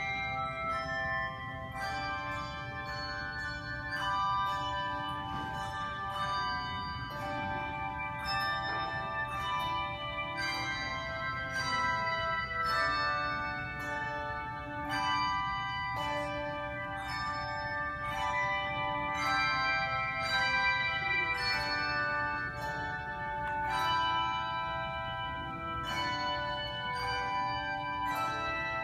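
A handbell choir playing a piece: many tuned handbells struck in quick succession, their notes ringing on and overlapping in chords.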